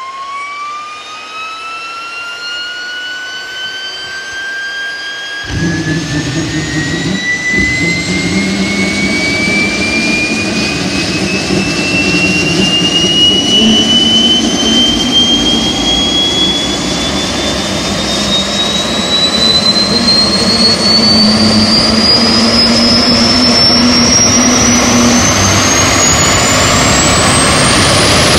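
Small jet turbine engine on a homemade garden tractor starting up. A whine rises in pitch as it spools up, and about five and a half seconds in it lights off with a sudden loud roar. The whine then keeps climbing steadily as the turbine speeds up.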